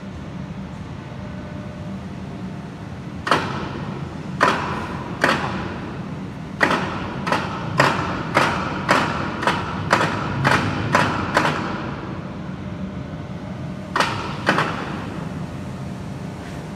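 A run of about fifteen sharp taps or clicks as a finger presses the press brake's Cybelec CybTouch 8 touchscreen controller, coming quickly in the middle and twice more near the end, over a steady low hum.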